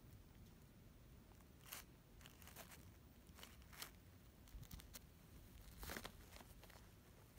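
Faint, scattered crinkles and rustles from a plastic squeeze-tube cat-treat packet being handled: several short ones, the longest about six seconds in.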